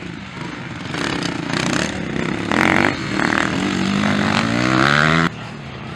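Motocross dirt bike engines revving hard as the bikes accelerate past, the pitch climbing steeply near the end before the sound cuts off suddenly.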